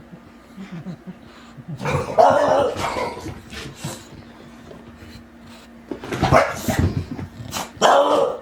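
English bulldog barking in three short bouts: about two seconds in, about six seconds in, and again near the end.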